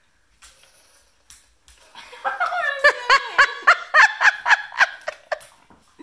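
A few faint clicks as a rotary phone's dial is turned, then, about two seconds in, a burst of laughter: quick pulsed ha-ha-ha sounds lasting about three seconds.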